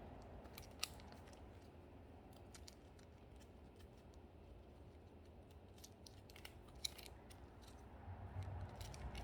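Quiet handling of trading cards in plastic sleeves: a few scattered light clicks and ticks over faint room tone.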